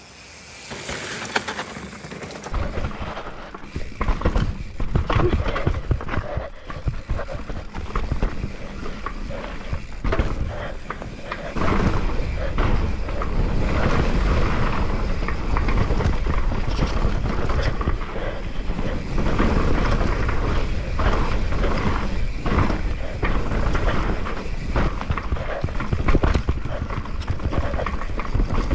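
Mountain bike rolling fast downhill over a dirt and rock trail: a steady rush of tyre and air noise with many quick knocks and rattles from the bike over bumps. A heavier low rumble comes in about twelve seconds in.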